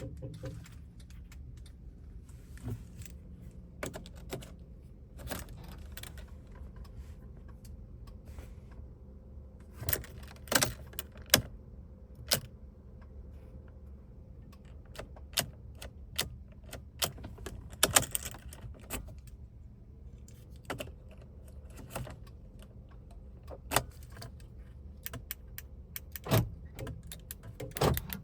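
Car keys jangling, with scattered sharp clicks and knocks, over a steady low hum.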